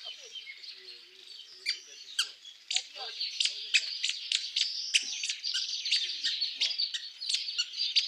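A colony of bats in a tree squeaking and chattering: a dense stream of sharp, high chirps that thickens and grows louder about two seconds in.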